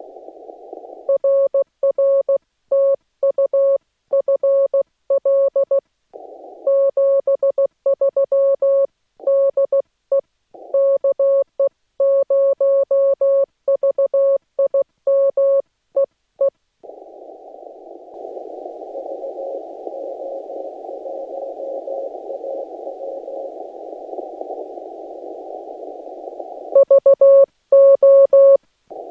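Morse code sent on a Yaesu FT-891 transceiver, heard as a single steady tone keyed on and off in dots and dashes, with clean silence between the elements. About halfway through, the sending stops and the receiver's narrow band of hiss comes up, with a faint Morse signal in it. Keyed sending starts again near the end.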